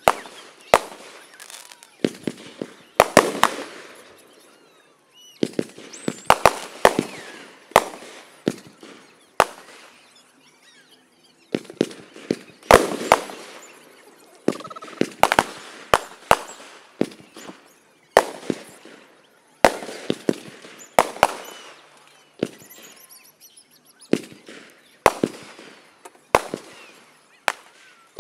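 Aerial fireworks show: shells bursting in irregular clusters of sharp bangs, each fading off in a trailing echo, with short lulls between volleys.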